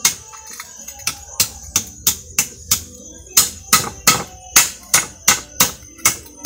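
Hammer blows on a small metal fitting around a braided rope, metal striking metal on a flat metal plate, about two to three blows a second. The blows grow louder about three seconds in.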